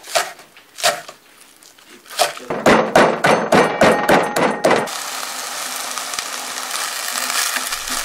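Kitchen knife striking a wooden cutting board while green onions and garlic are cut: two single chops, then a quick run of about a dozen strokes lasting a couple of seconds. From about five seconds in, food sizzles as it stir-fries in a hot pan.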